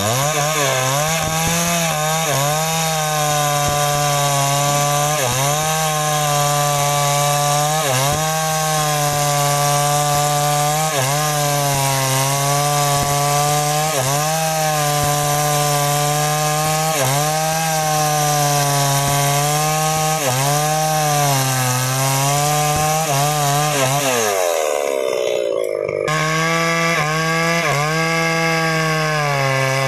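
New West 628 two-stroke chainsaw running at full throttle while cutting through a sengon log, its pitch dipping briefly about once a second as the chain bites into the wood. About 24 seconds in the engine winds down, and it is back at full speed cutting again about two seconds later.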